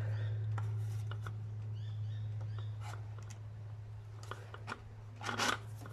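Plastic bottle being handled, with scattered small clicks and a short crackle of plastic about five seconds in, the loudest moment. Birds chirp faintly in the background over a steady low hum.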